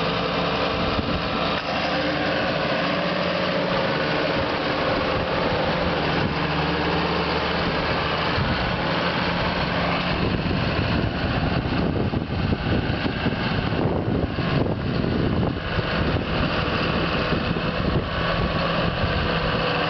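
2007 John Deere 7930 tractor's six-cylinder diesel engine running steadily as the tractor drives slowly across the field. About halfway through the sound turns rougher and choppier.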